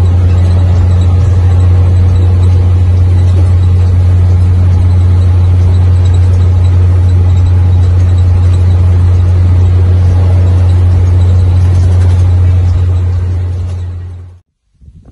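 Mercedes-Benz 1620 truck's six-cylinder diesel engine running at a steady cruise, heard inside the cab as a loud, even low drone with road noise, fading out near the end.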